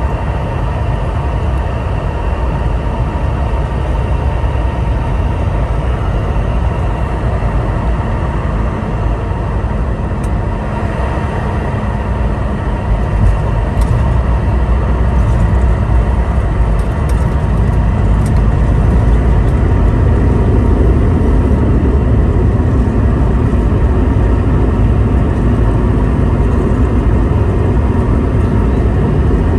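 Cabin noise aboard a Boeing 717: a steady roar of the rear-mounted Rolls-Royce BR715 turbofans and airflow, with a low rumble and a few light clicks midway. It gets somewhat louder about thirteen seconds in.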